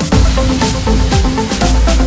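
Electronic dance music with a heavy bass line, a steady beat and repeating synth notes.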